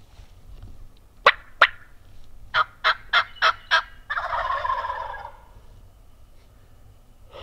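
Wild turkey calling: two sharp loud notes a little over a second in, then five evenly spaced notes, then a tom gobbling with a rapid rattle lasting about a second.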